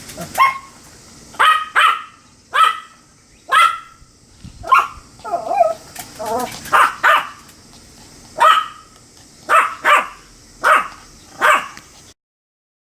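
Pomeranian barking: about a dozen short, sharp, high-pitched barks at an irregular pace, some in quick pairs, then the sound cuts off abruptly just before the end.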